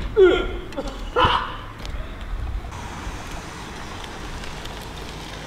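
A sharp click, then two short voice calls in the first second and a half, followed by a steady rushing noise.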